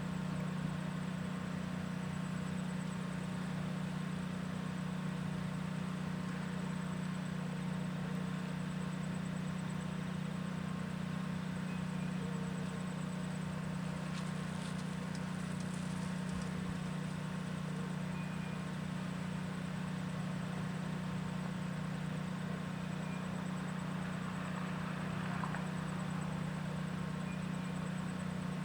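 Steady low hum with a faint hiss above it, with a few faint, brief bird chirps every few seconds.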